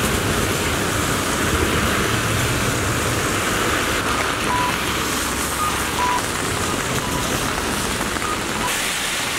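Steady rain falling and traffic passing on a wet city street, tyres hissing on the wet road. A few short, faint beeps come in near the middle.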